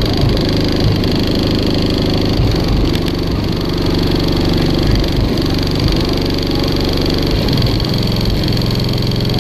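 Six DC Audio ZV4 18-inch subwoofers playing deep bass at extreme level inside a vehicle cab, set up to peak at about 23 Hz. It is a loud, continuous low rumble whose tone shifts every couple of seconds.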